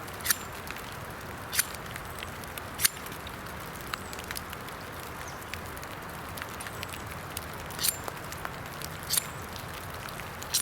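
Steady rain hiss, with a sharp click or scrape every second or few.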